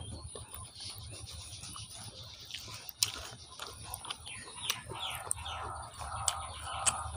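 Fingers tearing apart a whole tandoori-style roast chicken: wet, sticky pulling of meat and skin with a few sharp clicks. Birds chirp in the background.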